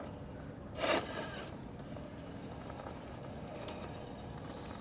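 Radio-controlled rock crawler creeping over rock: faint steady motor and drivetrain running, with a brief louder rush about a second in and a couple of small clicks of the tire lugs on stone.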